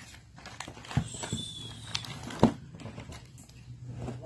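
A spring airsoft rifle, a KAC PDW replica, knocking several times as it is handled and set down on the floor, the loudest knock about two and a half seconds in.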